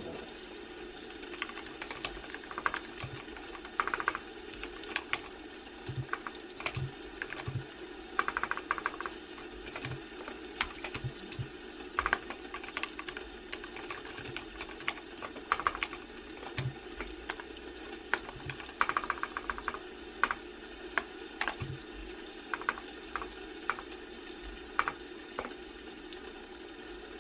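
Typing on a computer keyboard: irregular runs of key clicks broken by short pauses, over a steady low hum.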